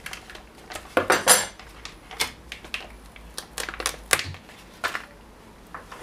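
Irregular clicks and clatter of hand tools handled against a ski. A steel rule and a plastic scraper are laid down and moved, and a utility knife cuts through the climbing skin's tail. The loudest clatter comes about a second in.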